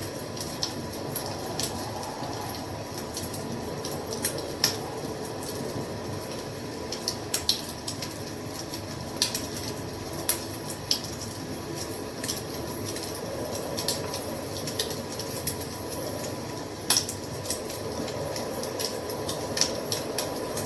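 Wood fire burning with a steady low rushing sound and irregular sharp crackles and pops, a dozen or so scattered through, the loudest about four seconds in and again near the end.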